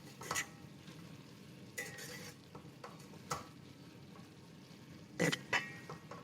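Beef mince frying in ghee in a pot with a faint steady sizzle while it is stirred. A utensil scrapes and knocks against the pot a handful of times, loudest about five seconds in. This is the bhuna stage of frying the mince after the ghee goes in.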